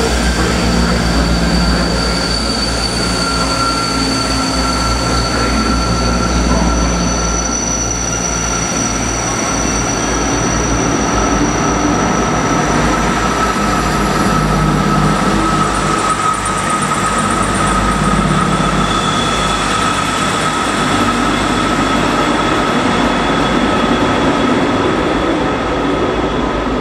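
South West Trains Class 159 diesel multiple unit pulling away and passing close by, with the steady rumble of its Cummins diesel engines and wheels on the rails. Over it runs a sustained high-pitched squeal from the wheels that drifts slowly in pitch.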